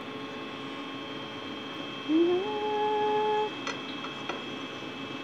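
Steady electrical hum. About two seconds in, a short louder tone slides up, holds for just over a second and stops abruptly. A few light clicks follow.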